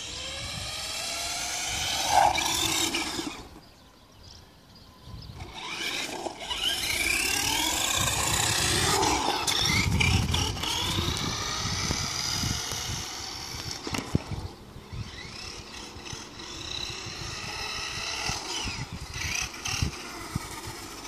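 A 1:10 four-wheel-drive RC car's motor whining as it speeds up and slows down, its pitch rising and falling again and again. It fades to quiet about four seconds in, then comes back loudest near the middle as the car runs close by.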